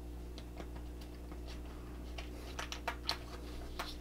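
Small plastic and metal clicks and taps as a Fujifilm X-T2 body and its vertical power booster grip are handled and fitted together. The clicks are sparse at first and come more often in the second half, over a steady low electrical hum.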